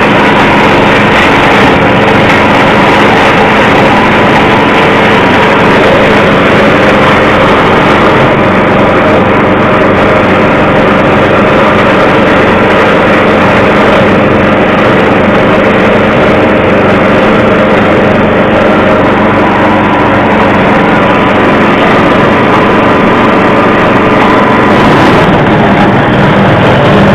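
Livestock forage chopper machine running loudly and steadily, its motor and cutter drum holding a constant pitch.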